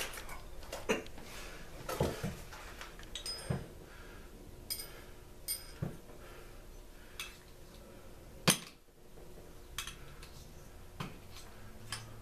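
Metal hand tools and small parts clinking and clattering on a workbench: scattered knocks at irregular intervals, a few with a short high metallic ring, the sharpest about eight and a half seconds in.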